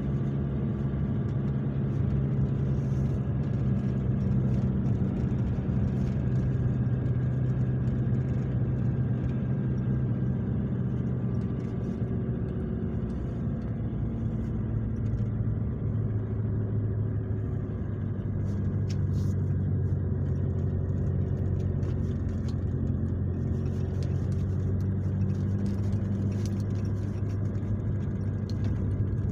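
Car engine running steadily with tyre and road noise, heard from inside the cabin while driving; the engine hum drops to a lower pitch about halfway through.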